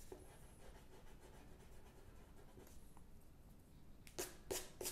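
Pencil lead scratching on watercolour paper in about five quick, short strokes near the end, after a few seconds of faint room noise.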